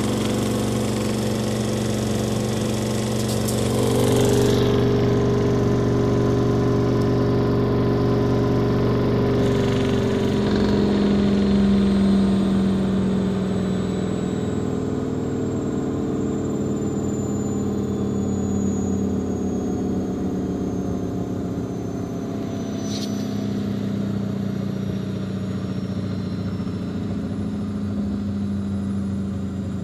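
Miele Softtronic W 2557 WPS washing machine spinning: a steady motor hum and drum rumble with a whine that slowly falls in pitch. An unbalanced load kept the spin from reaching its full 1600 rpm.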